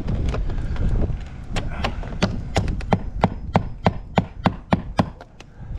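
Hammer driving nails: a quick series of sharp knocks, about three a second, through most of the second half.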